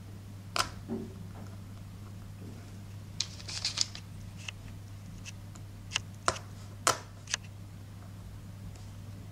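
Eggshell cracking into fragments as it is pressed onto a lacquer-coated board with fingertips and a small metal rod: a few sharp small cracks, a quick cluster of them about three to four seconds in and several more around six to seven seconds in.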